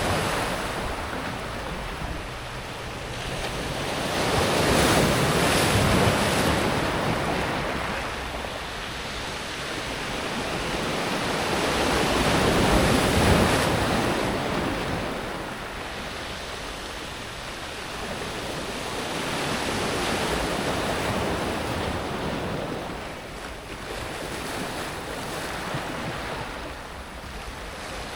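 Small sea waves breaking and washing up and back over a pebble beach, the water hissing over the stones. It comes in slow surges that swell and fade, louder near the start and in the middle, gentler toward the end.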